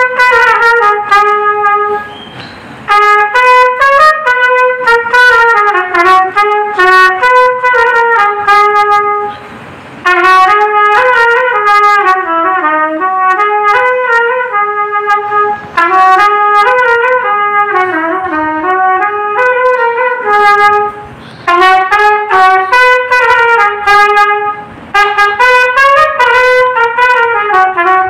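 Solo brass trumpet, unaccompanied, playing a Telugu film-song melody in phrases broken by short pauses for breath.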